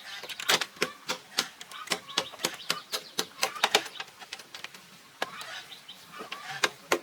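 A rapid, irregular run of sharp clicks and knocks, several a second, with a lull about two-thirds of the way through.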